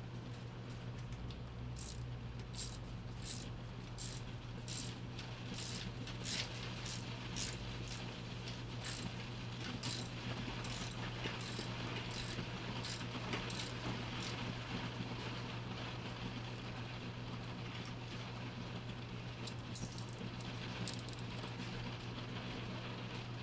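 Mechanical clicking from hand work on an outboard motor's lower unit: sharp metallic clicks at about one and a half a second for several seconds, then scattered ones, over a steady low hum.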